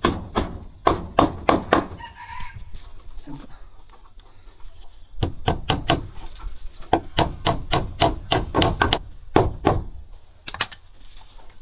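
A quick run of sharp knocks and taps, several a second, that pauses for a few seconds and then starts again. A short chicken call comes about two seconds in.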